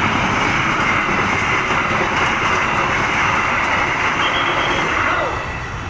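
Passenger train carriages passing close by at speed: a loud, steady rush of wheels on rails that drops away about five seconds in as the end of the train goes by.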